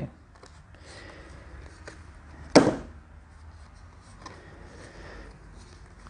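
Quiet handling of a deck of game cards: faint rustles and small ticks, with one brief louder swish about two and a half seconds in.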